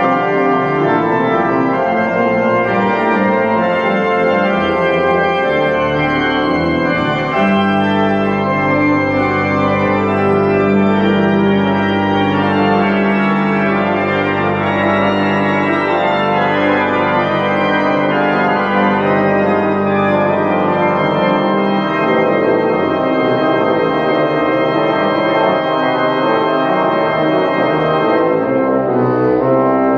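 The restored Bernard 'Father' Smith pipe organ playing full chords made of many held notes. A low pedal note enters about seven seconds in and holds until about twenty-two seconds.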